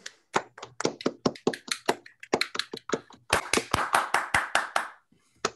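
Applause from a small audience: separate hand claps from a few people, heaviest about three to five seconds in, then dying away.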